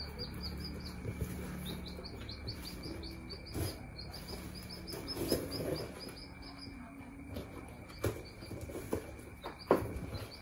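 Many young chicks peeping, a quick, continuous run of short high cheeps, with a few sharp knocks of the cardboard boxes being handled.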